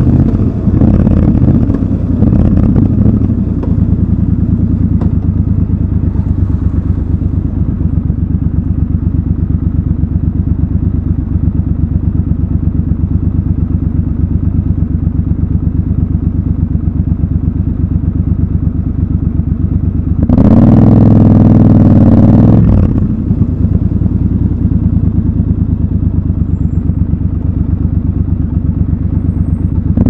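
Triumph Scrambler 1200 XC's 1200 cc parallel-twin engine slowing as the bike rolls to a stop, then idling steadily at a standstill. About twenty seconds in, a loud burst of noise lasts about two seconds before the idle returns.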